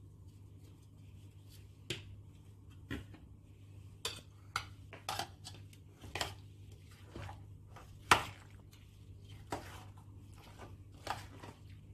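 Metal spoon clinking and scraping against a dish while stirring a thick cream dressing, in irregular strokes, the sharpest about eight seconds in.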